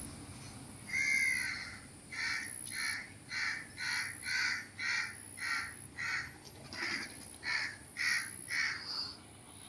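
A bird calling over and over: one call about a second in, then a long even series of short calls, about two a second.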